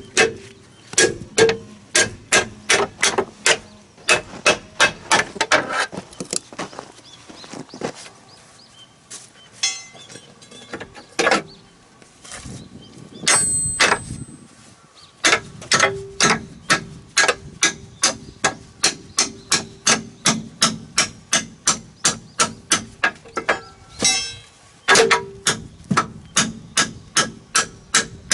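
Hammer blows on metal, struck in steady runs at about two or three a second, with a pause of several seconds in the middle.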